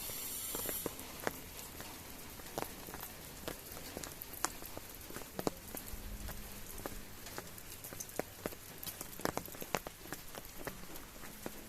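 Rain falling: a steady hiss with scattered, irregular drop ticks.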